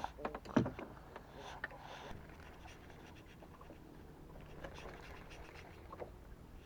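Faint scratching and rustling with a few sharp knocks in the first second: handling noises on a small boat.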